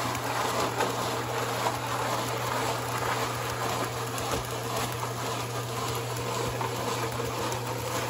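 MUD Mixer electric concrete mixer running with a steady hum while wet concrete slides down its chute and drops into a footing hole.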